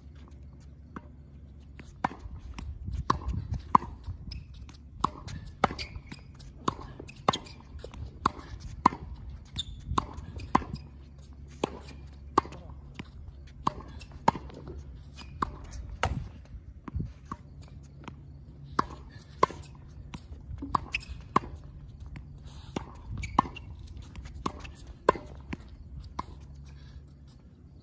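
Tennis balls struck by racket strings in a volley drill: sharp pops in quick succession, often in pairs about half a second apart, one or two a second.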